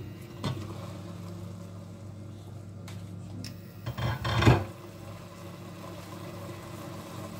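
Steady low hum of a running kitchen appliance, with a light knock about half a second in and a louder clatter at about four and a half seconds.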